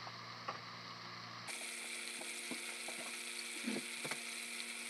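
Chicken pieces browning in hot oil in a stainless steel pot: a soft, steady sizzle with scattered small pops, growing a little louder and hissier about a second and a half in.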